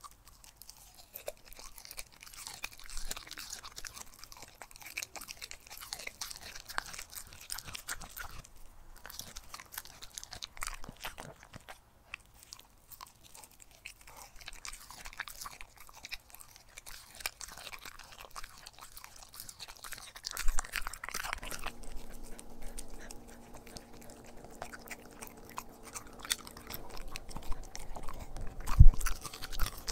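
A corgi chewing raw meat, with many small crunching bites and a louder thump near the end.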